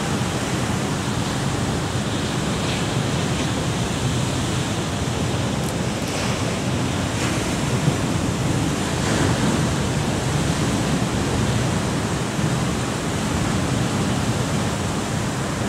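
Sea surf breaking against rocks: a steady rush of waves.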